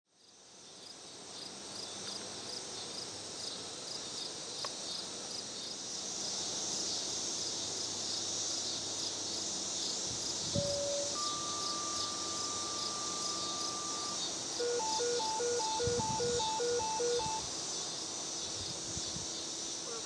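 Insects chirping in a steady, finely pulsing chorus. About halfway a radio pager alert sounds: a short low tone, then a steady higher tone held about three seconds, then a string of short beeps alternating between two pitches, the dispatch tones that come before a radio announcement of the siren test.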